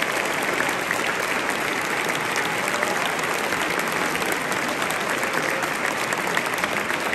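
Concert audience applauding, a steady dense clapping that holds without a break.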